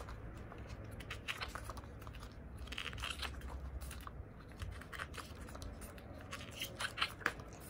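Pages of a glossy album photobook turned by hand: light, scattered paper rustles and flicks.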